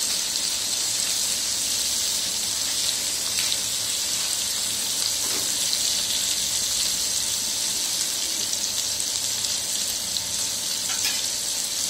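Masala-coated whole fish frying in oil on a hot flat tava griddle: a steady sizzling hiss with a few small pops.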